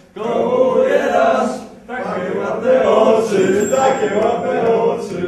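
A few men singing a song together, unaccompanied, with a short break about two seconds in.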